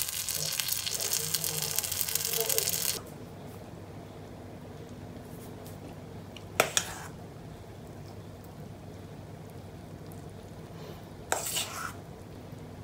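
Gyoza sizzling loudly in a frying pan; the sizzle cuts off about three seconds in. Later a metal spoon clinks against a stainless steel mixing bowl twice, while kimchi and natto are spooned onto rice.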